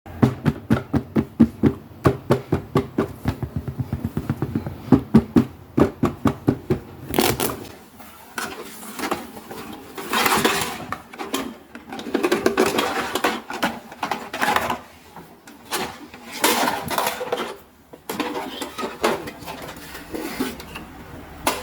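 Small plastic toys and their packaging being handled: a quick run of clicks and taps, several a second, for about seven seconds, then bursts of crinkling and rustling.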